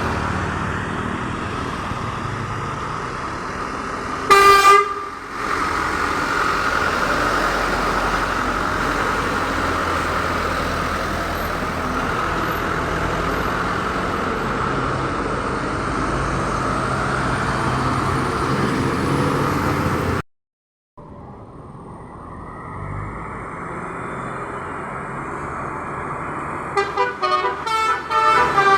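Roadside traffic with vehicle horns: one short, loud horn blast about four seconds in over steady engine and tyre noise, a brief cut to silence about twenty seconds in, then a rapid run of multi-tone horn toots near the end.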